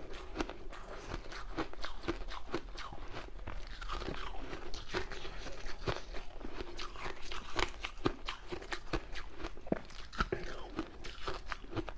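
Shaved ice being chewed, close to the microphone: dense, irregular crunching and crackling, many sharp crunches a second.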